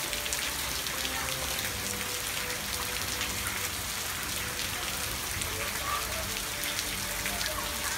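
Heavy rain falling steadily, with countless drops striking close by.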